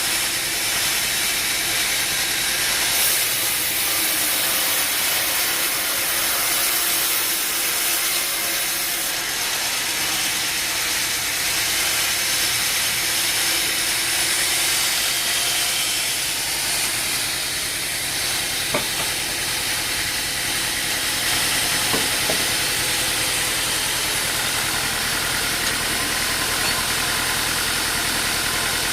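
Engine running steadily at a constant speed under a strong, steady hiss, with two brief sharp knocks about two-thirds of the way through.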